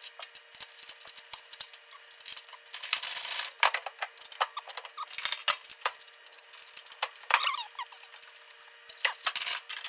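Rapid metallic clinking and clattering of hand tools and bolts on car body metal, with a few short squeaks. It sounds thin, with no low end.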